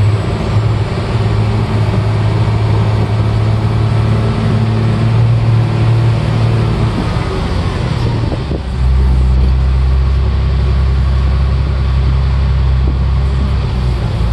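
Caterpillar 12H motor grader's diesel engine running under way, heard from inside the cab as a steady low drone. About eight and a half seconds in its note drops lower and gets a little louder.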